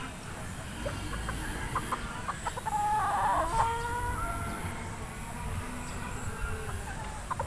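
Gamefowl chickens clucking in short scattered calls, with one louder drawn-out call about three seconds in.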